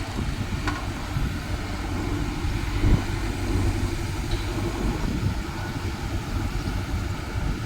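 Diesel engine of a CAT excavator running steadily, a continuous low rumble, with one short knock about three seconds in.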